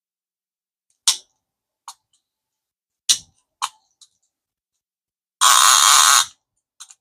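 A freshly reassembled ABU Garcia Ambassadeur 5001CA baitcasting reel being worked by hand: several sharp mechanical clicks from its controls, then a rapid ratcheting buzz of just under a second as it is spun, and a couple of faint clicks at the end.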